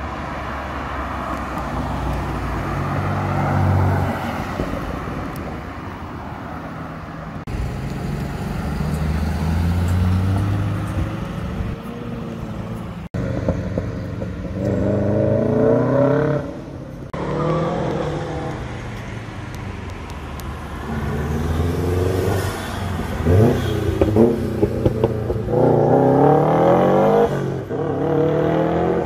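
Sports car engines accelerating hard in several separate passes, each pitch climbing in rising sweeps broken by drops at the gear changes. A few sharp cracks come about two-thirds of the way through.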